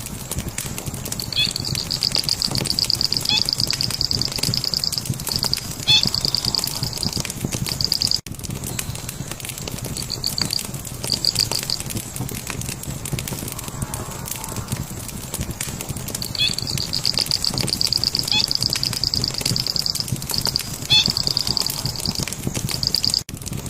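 Wood fire crackling steadily, with a bird singing a rapid, high trill that runs for several seconds about a second in and again past the middle, with shorter trills between.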